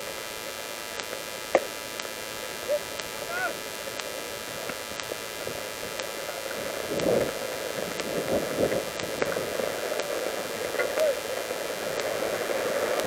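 Steady hiss with faint, distant shouting voices and one sharp knock about one and a half seconds in.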